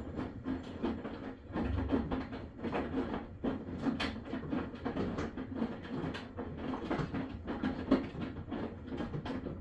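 Maytag washing machine running, with an uneven clatter of knocks and rattles, several each second, over a low hum.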